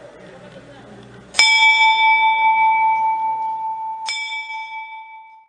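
A bell struck twice, about two and a half seconds apart, each stroke ringing out with several clear tones and slowly fading. Faint voices can be heard before the first stroke.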